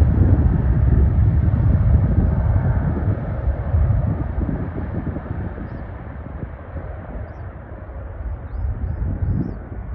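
Jet airliner's engine rumble, loud at first and gradually fading as the aircraft moves away. A few faint bird chirps come through in the second half.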